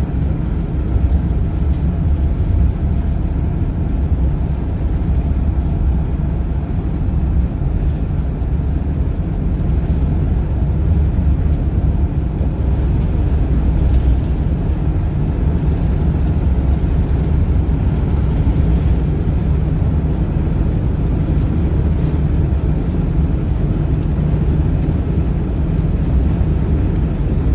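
Steady cabin noise inside a 2014 Sunstar 26HE motorhome while driving: an even low rumble of engine and road noise with no sudden spikes.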